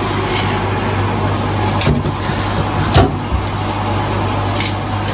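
Long metal tongs clicking and rustling in a plastic bag of feeder worms, with two sharp clicks about two and three seconds in, over a steady low machine hum and hiss.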